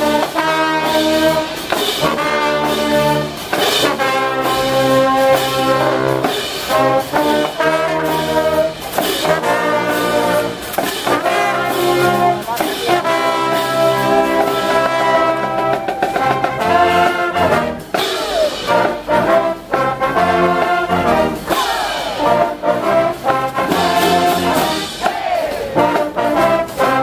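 Brass band of trumpets and trombones playing a tune live, in held chords over a steady beat.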